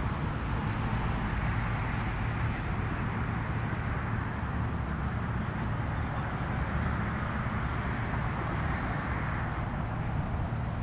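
Steady outdoor background noise with a low hum underneath, unchanging throughout.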